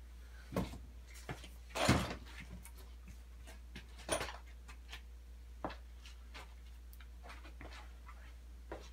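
Scattered knocks and clunks of wooden boards being handled while a long board is searched out, about five in all, the loudest about two seconds in, over a steady low hum.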